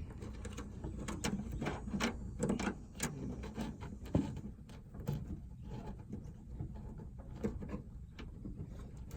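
Irregular clicks, taps and scraping as a new door latch cable and its plastic holders are worked by hand into a car door, with the sharpest click about four seconds in.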